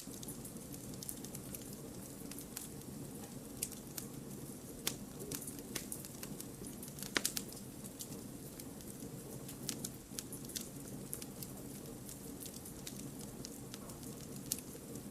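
Wood campfire burning, a steady low rush of flame with irregular crackles and pops of the burning logs, one sharper pop about halfway through.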